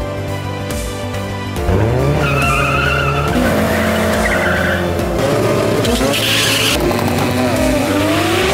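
Background music with a heavy bass line, mixed with race cars revving and tyres squealing at a drag strip start line.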